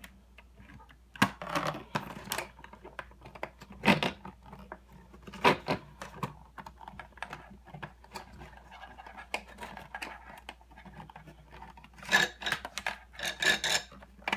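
Irregular clicks, taps and scrapes of hard plastic as a 3D Systems Cube 3 filament cartridge is handled and its feed gear is turned by hand with a small screwdriver to push the filament through, with a burst of louder clicks near the end.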